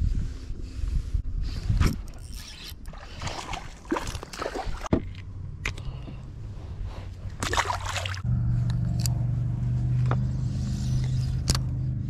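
Handling noise in a fishing kayak: clicks, knocks and rustling from hands, rod and reel as a small bass is unhooked and released. From about eight seconds in, a steady low mechanical hum sets in and runs on.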